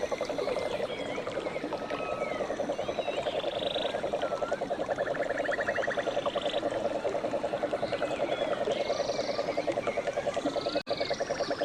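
Frog chorus: a steady, fast-pulsing low trill, with higher chirps, whistles and short trills over it. It drops out for an instant near the end.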